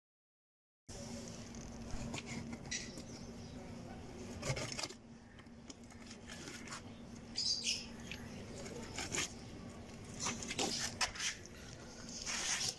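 Wet squelching and scattered clicks of hands pulling out and handling organs inside an opened cow carcass, over a steady low hum. The sound cuts in abruptly about a second in, after silence.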